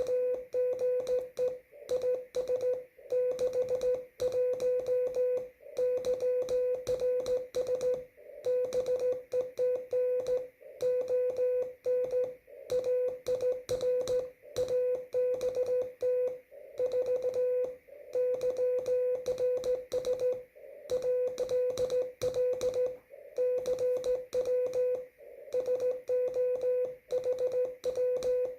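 Amateur radio Morse code (CW) at slow speed: a single steady mid-pitched tone keyed on and off in short dots and longer dashes, with short gaps between characters and longer pauses between words.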